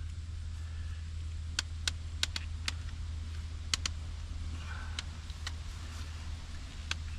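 Steady low hum of an idling engine, with scattered sharp clicks and ticks at irregular intervals.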